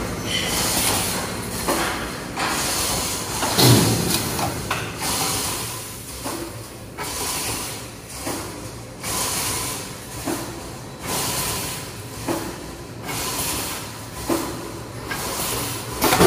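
Automatic welded wire mesh machine for chicken-cage panels running through its cycle: a repeating pattern of hissing air bursts and metal clanks every one to two seconds, with a louder clank about four seconds in and another at the end.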